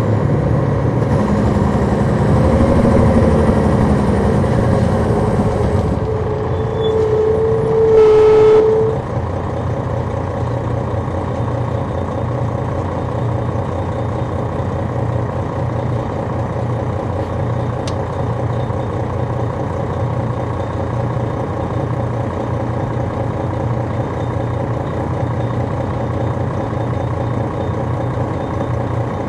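The Detroit Diesel Series 60 inline-six diesel of a 2002 MCI D4000 coach, heard from on board. For the first few seconds it runs with its pitch rising and falling. About eight seconds in a loud steady tone sounds for about a second, then the engine runs on steadily.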